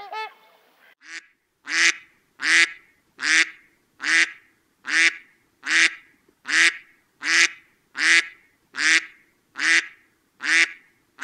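A bird calling in a steady series of short, evenly spaced calls, about one every three quarters of a second, after a brief different call at the very start.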